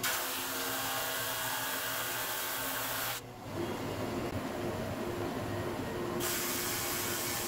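Laguna SuperMax 16-32 drum sander running, sanding strips of wood fed through on its conveyor belt: a steady hiss over the machine's hum. About three seconds in, the hiss drops away while the belt runs empty, and it comes back near the end as the next piece feeds in.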